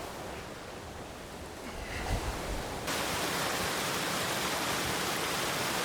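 Waterfall rushing as a steady even noise, with some wind. About three seconds in the rush abruptly becomes louder and brighter.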